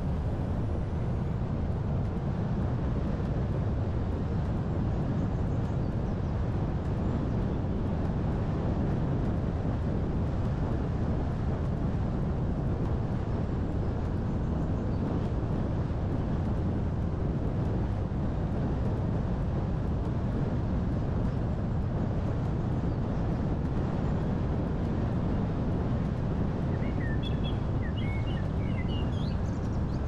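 Steady low rumble of a moving car's engine and tyres on the road, heard from inside the car. A few faint, short high chirps come in near the end.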